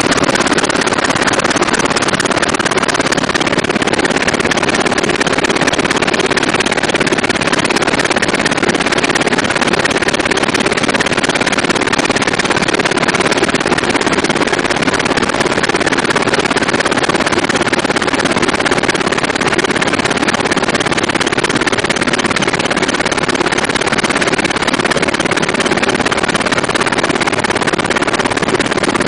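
Steady, loud in-flight noise of a UH-60 Black Hawk helicopter heard from inside the cockpit: rotor and twin turboshaft engine noise with no break or impact.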